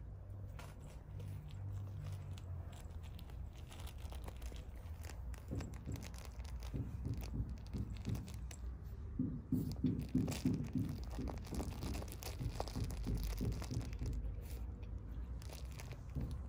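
A cat rolling in grass while biting and kicking a toy: rapid rustling and crunching, starting about a third of the way in and loudest a little past the middle, over a low steady rumble.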